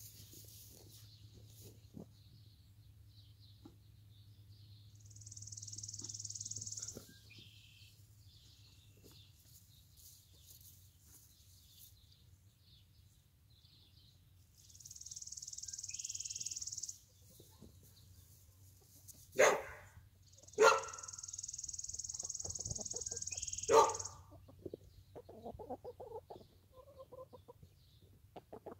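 Domestic hen clucking and calling close by: three loud, short sounds about two-thirds of the way through, then soft low clucks near the end. A high, steady hiss-like sound comes three times, about two seconds each.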